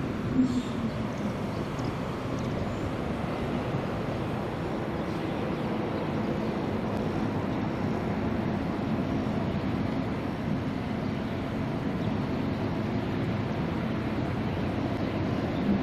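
Distant diesel engine running steadily: a low, even drone that holds a few faint steady pitches and does not rise or fall.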